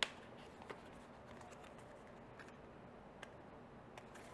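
Faint, sparse clicks and light rustles of paper and cardstock being handled as small pieces are pulled out of a handmade paper book's pockets, with a sharper click right at the start.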